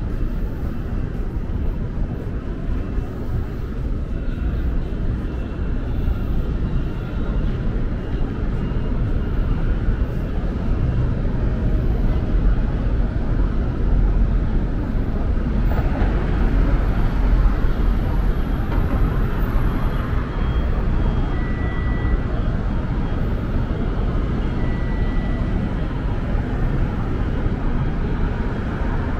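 City street traffic: a steady rumble of passing vehicles that grows louder through the middle and then eases. A few short high beeps sound in the second half.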